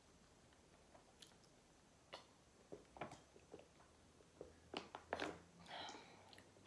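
Faint close-up chewing: a person eating, with soft wet mouth clicks and smacks, sparse at first and more frequent in the second half.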